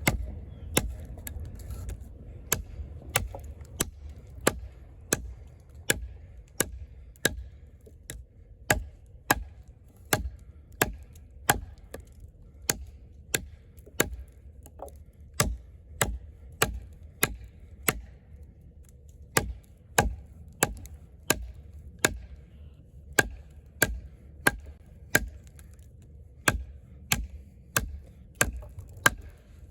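Eafengrow EF-143 camp knife, a thick fixed blade of AUS-10 steel, chopping into a log: sharp blows of the blade biting into the wood at a steady pace, about three strikes every two seconds.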